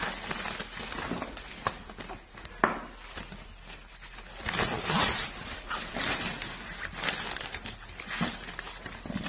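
Rustling and scraping of a padded fabric stroller seat liner being pushed, pulled and smoothed into the seat, with a few light clicks.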